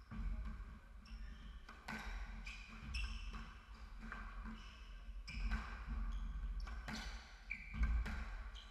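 Squash rally: the hard rubber ball cracking off rackets and the court walls every second or two, with sports shoes squeaking briefly on the hardwood floor and thudding footsteps between shots.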